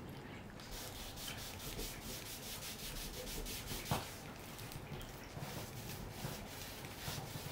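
A cat licking treats, a quick even run of rasping licks at about five or six a second, with one sharp click about four seconds in.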